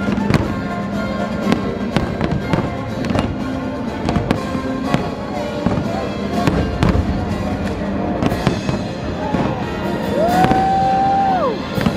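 Fireworks show: aerial shells bursting in a rapid, irregular series of bangs, with music playing underneath. Near the end, a long tone rises, holds and then falls away.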